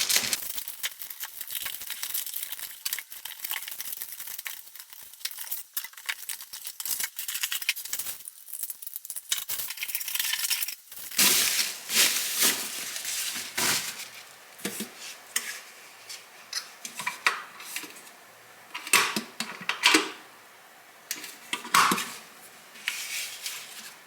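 A packaged electric kettle being unboxed by hand: cardboard and plastic wrapping rustling and crinkling, with scattered knocks and clinks as the box and its contents are handled.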